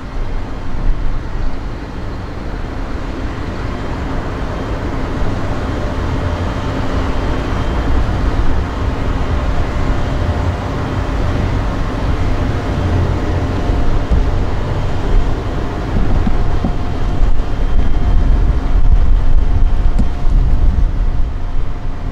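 Wind buffeting the microphone, a gusty low rumble that grows stronger toward the end, over a steady faint engine hum.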